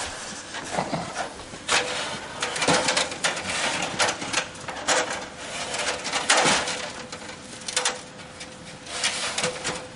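Aluminium ladder being handled and stood against a house wall, clattering and scraping in a run of irregular sharp knocks.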